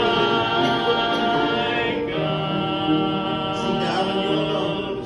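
A slow hymn sung by voices, with long held notes that change every second or two.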